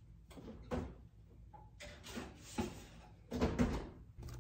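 Oven door opened and shut with a metal baking pan set inside: a run of knocks and clunks, loudest about three and a half seconds in.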